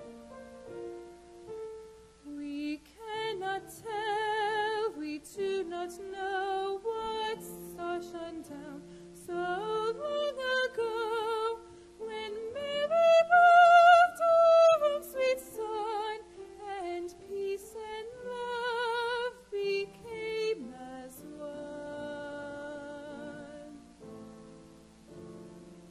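A solo female voice sings a slow song with strong vibrato over held instrumental accompaniment, rising to a long high note about halfway through. The accompaniment plays alone for the first couple of seconds and again near the end.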